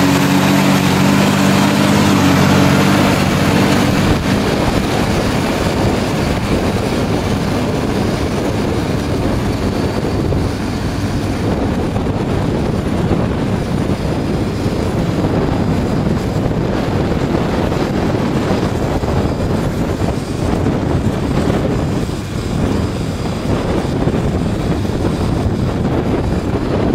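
Deutz-Fahr Agrotron TTV 620 tractor running steadily under load as it pulls a Rossetto Air Disc cultivator through the soil. The engine hum is clear for the first few seconds, then turns rougher and noisier.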